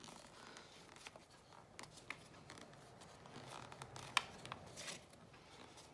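A piece of sketchbook paper being rolled tightly between the fingers into a homemade blending stump: faint rustling with small crinkles and clicks, and one sharper crackle about four seconds in.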